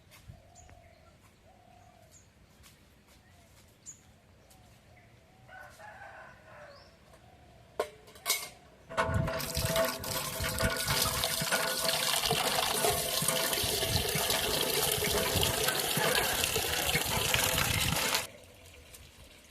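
Water pouring steadily for about nine seconds, then stopping abruptly, just after two sharp knocks.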